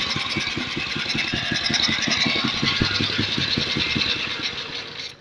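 Small air-cooled petrol engine with a recoil starter running steadily with an even low beat, then cutting off suddenly at the very end.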